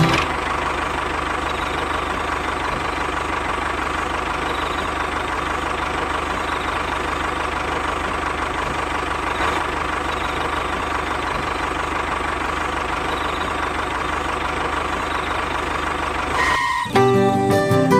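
A motor or engine running steadily with an even hum. It stops about sixteen and a half seconds in, and plucked-string music begins.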